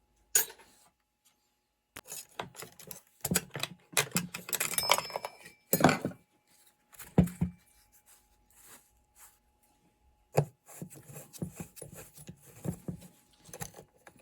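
Loose metal parts, screws and hand tools clinking, clicking and knocking while a chainsaw is taken apart, with a busier stretch of rattling clatter about four to six seconds in and single sharp knocks near the start, around seven seconds and around ten seconds.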